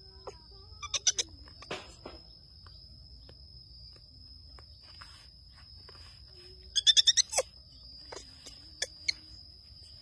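Infant monkey giving rapid bouts of shrill, high-pitched screeching calls: a short bout about a second in and a louder one around seven seconds in.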